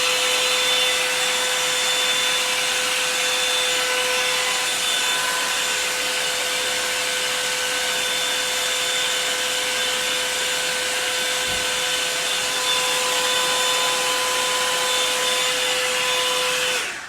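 Handheld hair dryer blowing steadily, its motor giving a constant hum-like whine over the rush of air, then switched off abruptly near the end.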